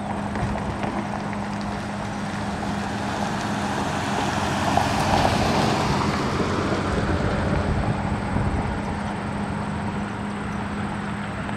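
Street ambience: a motor vehicle passes, swelling to its loudest about halfway through and then fading, over a steady low hum.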